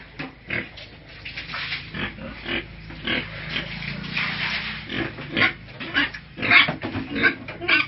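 Piglets giving short, repeated squeals and grunts, louder and more frequent in the second half.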